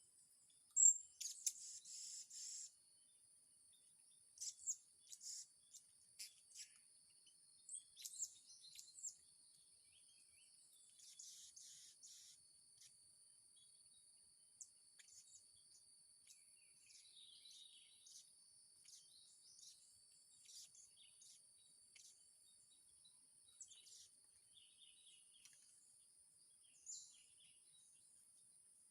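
Blue-crowned hanging parrots (serindit) giving short, sharp, high-pitched chirps at irregular intervals, loudest in a cluster a second or two in. A steady high-pitched whine runs underneath.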